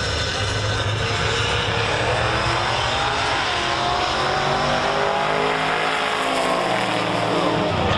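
A drag-racing car's engine at full throttle going down the strip. Its pitch rises and then falls as it passes.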